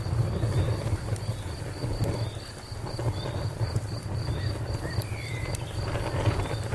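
Fire crackling with a low rumble and a few sharp pops, under an insect chirping in a fast, even pulse of about four or five chirps a second.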